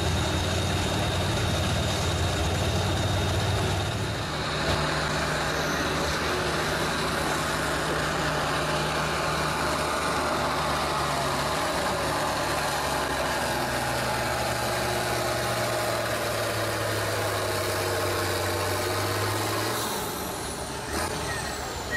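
Tractor engines working under load on a pulling track. For about four seconds a modified pulling tractor's engine runs steadily. Then a red International Harvester farm tractor labours against the sled, its engine pitch sagging gradually as it drags down the track, until it falls away about twenty seconds in.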